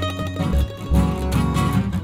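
Background music: acoustic guitar with plucked and strummed notes over a bass line.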